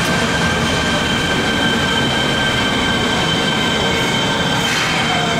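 Fukuoka City Subway train running into the station and slowing, a steady rumble under a steady high squeal, with a pitch that falls a little near the end as it comes to a stop.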